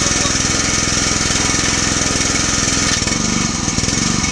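Gasoline pressure washer's small engine running steadily with a high hiss over it; about three seconds in, the sound shifts and the hiss eases.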